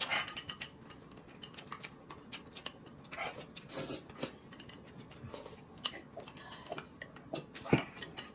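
Quiet eating sounds at a table: light scattered clicks and clinks of a spoon in a glass cup and chopsticks on a plate, with a couple of short noodle slurps.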